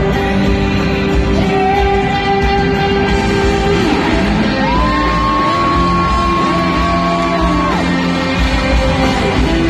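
Live rock band playing in a large hall, heard from the audience, with two long held notes, the second one higher.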